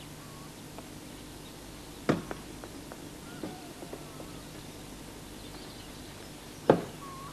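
Quiet outdoor ambience with a few sharp knocks, a loud one about two seconds in and the loudest near the end, and faint short chirps.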